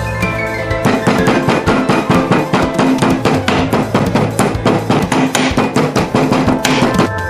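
Background music with a fast, even percussive beat and sustained tones.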